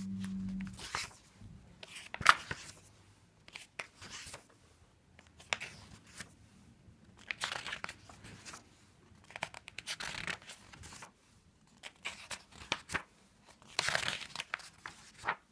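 Paper pages of a paperback coloring book being turned by hand, rustling and swishing in irregular bursts every second or few, with light flicks of the paper.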